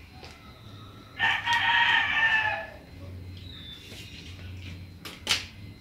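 A rooster crowing once, a single long call of about a second and a half, starting about a second in.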